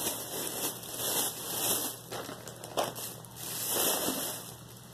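Plastic shopping bag crinkling and rustling in irregular swells as items are handled, with one sharp click a little before the middle.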